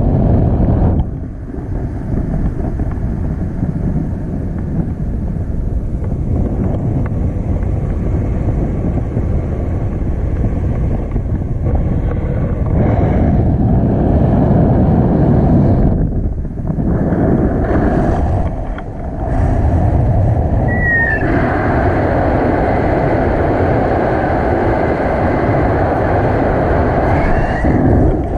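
Wind rushing over the microphone of a camera held out on a selfie stick during a tandem paraglider flight. The noise is loud and steady, with a few brief lulls.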